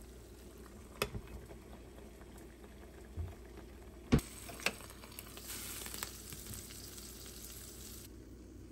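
Eggs frying in oil in a small nonstick pan, with a soft sizzle and spitting of the oil. A sharp clack about four seconds in as a glass lid is set on the pan, and the sizzle grows brighter under the lid before stopping abruptly near the end.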